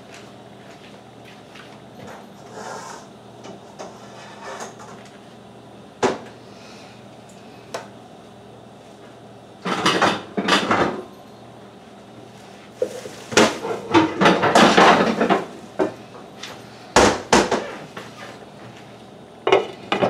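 Kitchen clatter: pots, pans and utensils knocking in several short bursts over a steady low hum, ending with a glass lid being set on a frying pan.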